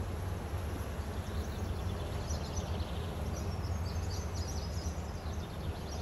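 Outdoor background noise: a steady low rumble with faint, high bird chirps about two to four seconds in.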